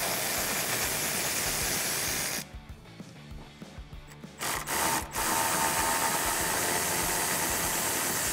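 Cordless electric ratchet spinning a 13 mm socket on an extension, backing bolts out of the air box bracket: a steady motor whir that stops about two and a half seconds in, gives two short blips, then runs again for about three seconds.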